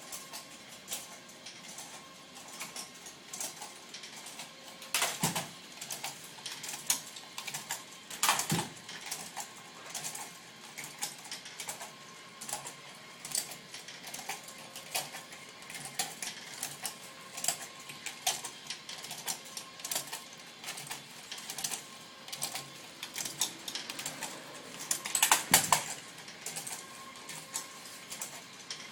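Irregular clicks, taps and rustles of hand packing work as pears and packing materials are handled and set into boxes, with a few louder knocks about five, eight and twenty-five seconds in.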